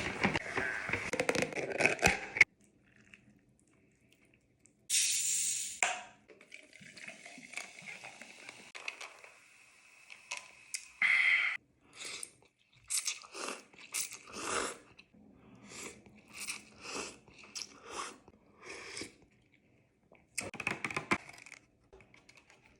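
Close-up eating sounds of a person chewing and crunching food. A dense run of crunching opens, and after a pause come short separate crunches at about one or two a second.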